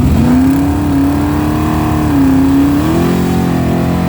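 A rebuilt engine running hard under load on a run, its pitch climbing slightly, dipping about halfway through, then rising again near the end.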